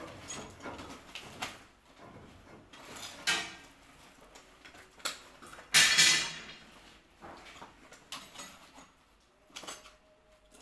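A window being handled and worked on: scattered knocks and scrapes, with a louder scraping rattle about three seconds in and the loudest, longer scrape about six seconds in.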